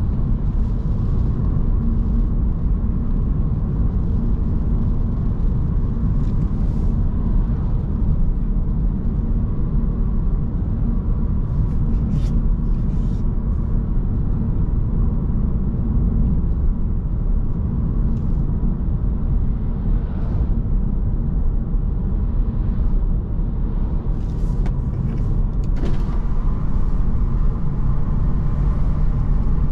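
2009 Audi S5's 4.2-litre V8 and tyres on a wet road, heard from inside the cabin: a steady low rumble at cruising speed. A few faint, brief swishes come through around the middle and near the end.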